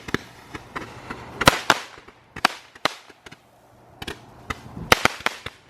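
Consumer fireworks going off: about ten sharp, irregular cracks and pops, coming closer together near the end.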